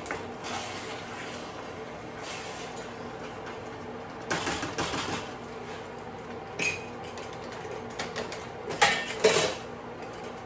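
Kitchen handling noises: a few short runs of clicking and scraping of utensils against a dish, about four seconds in, again near seven seconds, and loudest near nine seconds, over a steady low hum.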